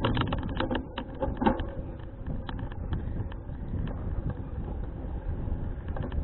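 Wind buffeting the action camera's microphone as a bicycle rolls along, a steady low rumble with many irregular sharp clicks and rattles on top, thickest in the first second and a half.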